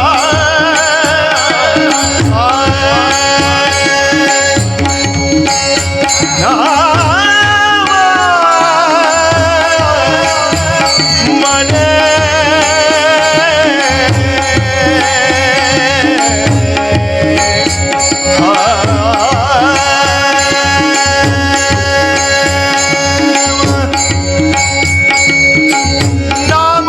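Marathi abhang devotional music: a tabla beats a steady rhythm under held drone tones, while a melodic line slides and wavers above it in long, ornamented phrases.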